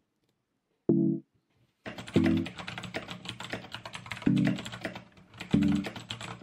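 Typing on a computer keyboard, a fast run of key clicks starting about two seconds in, over background music with plucked bass notes that sound about once a second.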